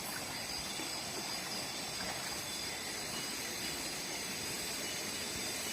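Steady forest ambience: an even hiss under a continuous high insect drone of several steady pitches.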